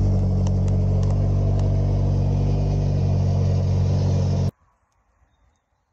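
Nissan Silvia S15's turbocharged SR20DET four-cylinder engine idling steadily, cutting off suddenly about four and a half seconds in.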